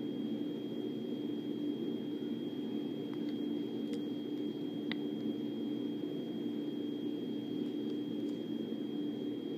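Steady low hum-like noise with a thin, constant high whine over it and a few faint clicks in the middle.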